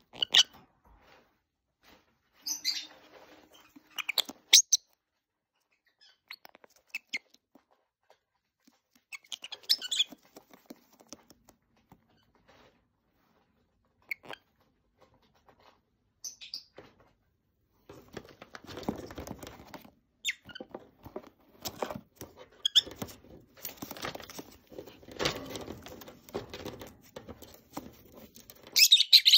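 Lovebirds giving short, high chirps now and then, with scratching and rustling of shredded paper and cardboard as they move and pick about the cage floor; the rustling becomes steady and busy in the second half.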